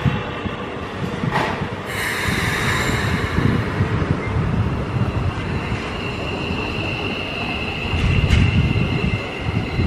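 Keikyu electric train running past on the rails with a steady rumble. A thin high-pitched wheel squeal comes in about six seconds in and holds.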